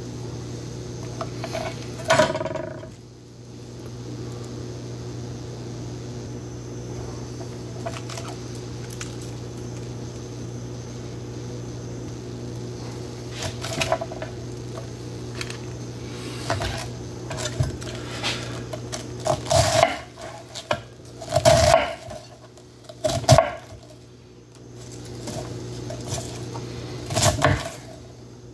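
Chef's knife chopping cabbage on a wooden cutting board: a sharp knock about two seconds in, a few faint clicks, then a run of loud chops about twenty seconds in and a couple more near the end, over a steady low hum.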